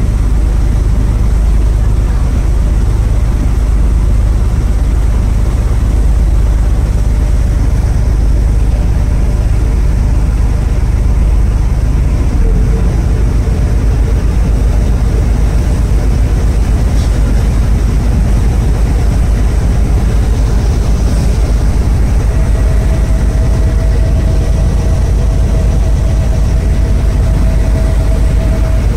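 Passenger ferry's engine running under way, a loud steady low drone heard from the open deck. The drone shifts slightly about twelve seconds in, and a faint steady whine joins it about two-thirds of the way through.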